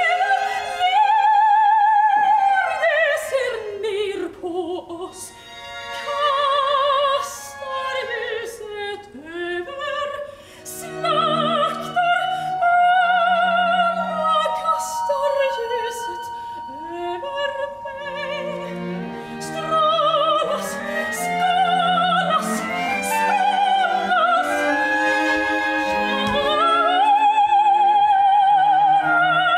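A solo soprano sings operatically with wide vibrato, in long phrases that swoop up and down. Instruments join beneath her with lower held notes from about a third of the way in.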